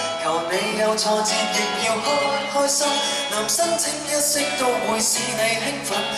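Live pop music: male voices singing into microphones over a band.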